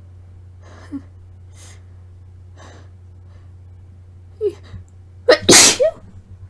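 A woman's induced sneeze: a few short breaths in, a gasping catch about four and a half seconds in, then one loud, wet sneeze bursting out about five and a half seconds in.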